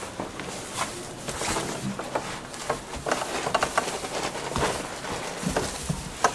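Irregular rustling with light clicks and knocks as goats move about in straw bedding and on wooden boards.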